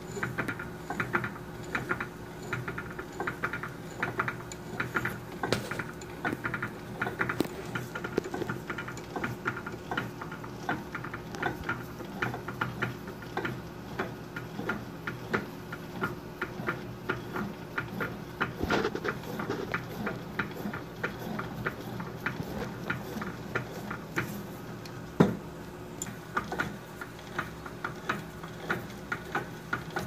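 Milling machine cutting holes in a metal heater-element flange: a steady spindle and motor hum under constant irregular clicking and rattling from the cutter biting the metal and throwing chips. One sharper knock about 25 seconds in.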